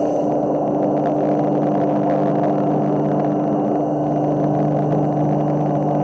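Washing machine running with a steady, loud motor hum that holds a constant low tone throughout.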